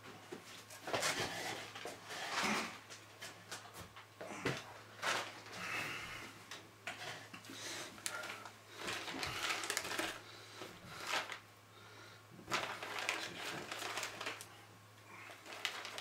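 Clear plastic packaging rustling and crinkling in irregular bursts, with small clicks, as a set of LED string lights is unwrapped and handled. A steady low hum runs underneath.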